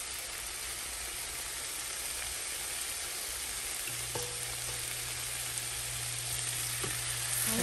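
Marinated lamb chops sizzling in hot butter in a frying pan, a steady frying hiss that slowly gets a little louder.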